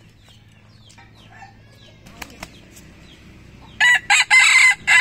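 Red junglefowl rooster crowing once, a short loud crow broken into a few pieces, starting near the end; before it, faint soft clucking and a couple of light clicks.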